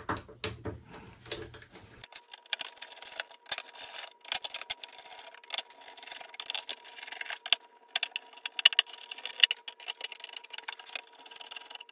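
Screwdriver with a T15 Torx bit loosening the screws around a scooter's clear plastic deck cover: a steady string of small irregular metal clicks and short scrapes as the bit seats in and turns each screw.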